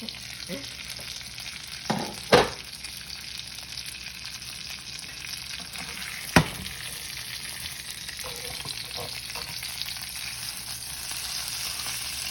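Thick ribeye steak sizzling in a hot pan, a steady hiss that grows a little louder near the end. Two sharp clicks, about four seconds apart, cut through it.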